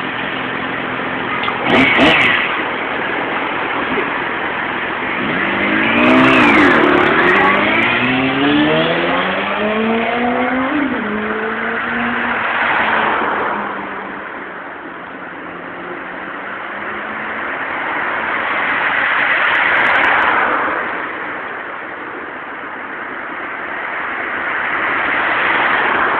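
Yamaha R6 sport bike's inline-four engine with a short sharp burst about two seconds in. Then the engine accelerates hard, its pitch climbing steeply and dropping back around eleven seconds in, as at a gear change. After that the engine noise swells and fades several times.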